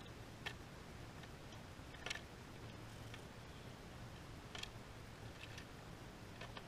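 Faint, scattered small clicks and ticks of fishing lures and hooks being handled over an open plastic compartment tackle box, a few clearer ones seconds apart, over a low steady hum.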